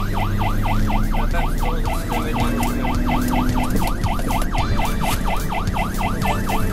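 Fire engine's siren in rapid yelp mode, about four rising-and-falling sweeps a second, heard from inside the cab over the truck's steady engine hum.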